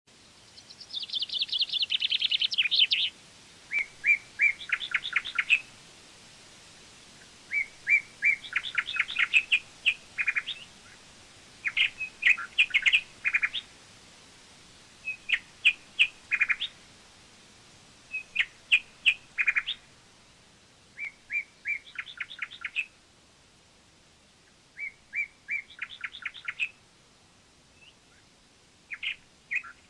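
A songbird singing, in short phrases of quick, high chirping notes. Each phrase lasts a second or two, and the phrases repeat every few seconds with brief pauses between them.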